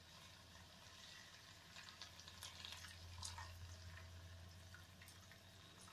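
Water poured from a jug into a steel kadhai of fried rice and vegetables, faint, with small splashes and drips from about two seconds in: the cooking water going in for the pulao.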